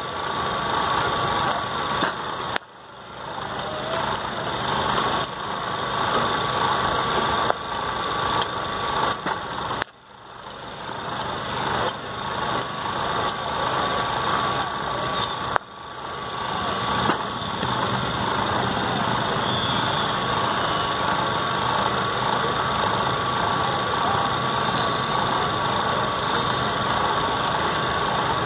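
Steady outdoor noise broken by a few sharp cracks of a cricket bat striking the ball in the nets, each crack followed by a brief drop in the background.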